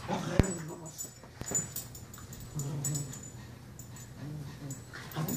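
A dog making low whining, grumbling sounds while play-fighting with a cat. There is a sharp knock about half a second in.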